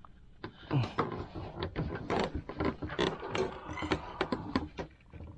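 Irregular knocks, clicks and rustling close to the microphone, starting about half a second in: handling noise as a fishing line snagged on a sunken tree is pulled by hand over the side of a wooden boat.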